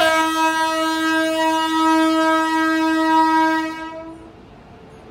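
Two-tone-free single horn of an Indian Railways electric locomotive pulling into the platform: one long, steady blast that fades out about four seconds in.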